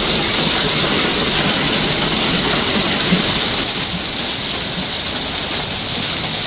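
Heavy rain mixed with hail pelting down in a steady, dense hiss, with scattered sharp ticks of hailstones striking.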